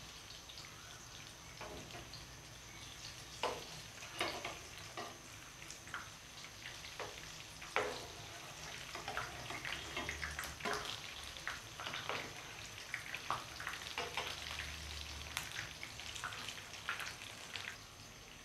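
Long bean pakoras deep-frying in hot oil: a steady sizzle with irregular pops and crackles. A spatula scrapes and knocks against the pan now and then as the fritters are turned.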